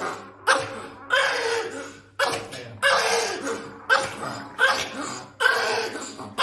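Pomeranian barking repeatedly in excitement, about eight sharp barks roughly a second apart, each starting suddenly and fading out.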